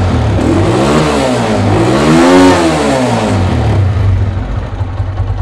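Honda CG125 air-cooled single-cylinder pushrod four-stroke engine revved twice with the throttle, a short blip and then a higher, longer rev, before dropping back to idle. It runs smoothly with no push rod noise, the worn push rods having just been replaced.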